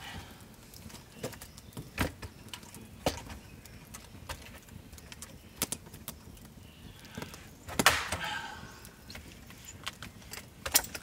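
Machete blade striking and levering apart a length of split wood: a string of sharp wooden knocks, and about eight seconds in a louder crack followed by a short splintering crackle as the wood tears apart.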